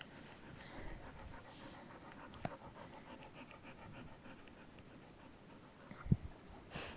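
Dog panting, with a few light clicks and one short thump about six seconds in.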